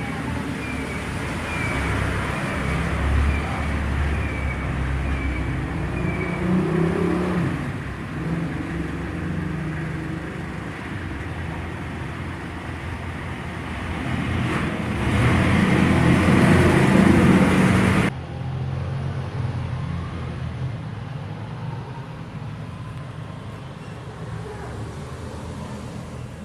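Steady low background rumble and hiss, of the kind PANN files as road traffic, swelling louder for a few seconds past the middle and then dropping suddenly. A faint high chirp repeats about one and a half times a second during the first six seconds.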